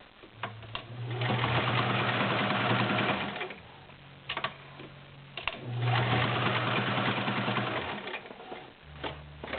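Kenmore 1755 vintage all-metal sewing machine with its 1.2 amp motor stitching through six layers of denim in two runs of about two seconds each, the motor humming between them, with a few sharp clicks before, between and after the runs.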